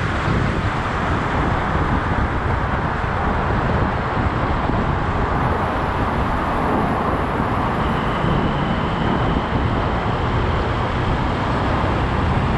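Motorcycle riding at a steady speed through a road tunnel, heard from the rider's position: a continuous rush of wind, engine and road noise at an even level.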